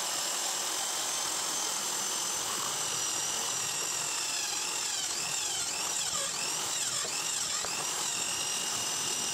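Electric drill mounted in a homemade pipe-column drill stand, running steadily as a twist bit bores into a metal workpiece. From about halfway its whine wavers and dips several times as the bit cuts.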